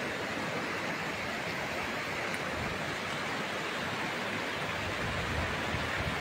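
Steady rushing of a swollen, muddy river in flood, an even unbroken noise of fast-moving water.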